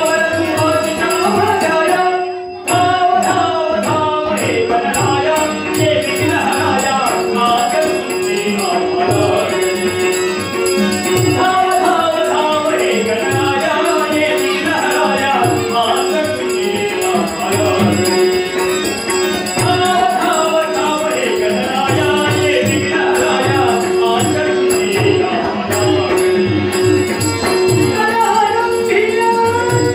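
Marathi devotional singing by a male voice over a steady harmonium drone, with pakhawaj drum strokes and small hand cymbals keeping the rhythm. The music dips briefly about two and a half seconds in.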